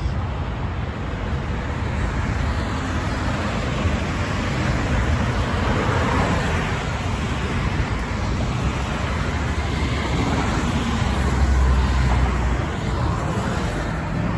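Steady multi-lane highway traffic: cars and a box truck passing close by with tyre noise, swelling as vehicles go past, with a strong low rumble near the end.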